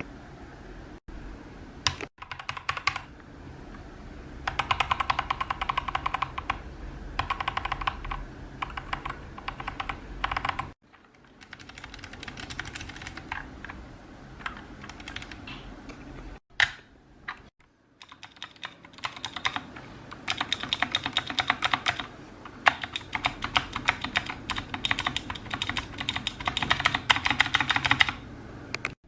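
Mechanical keyboard with Gateron switches being typed on in fast runs of clacking keystrokes, broken by a few brief pauses.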